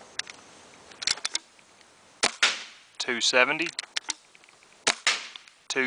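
A Sterling pump-action paintball marker, powered by a 12-gram CO2 cartridge, firing single shots, each a sharp pop, a few seconds apart.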